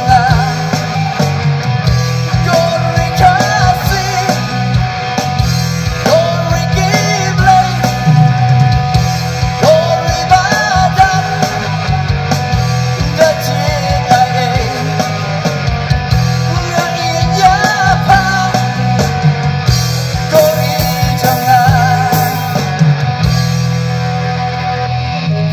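A rock band playing live: a singer's voice over electric guitars, bass and drums.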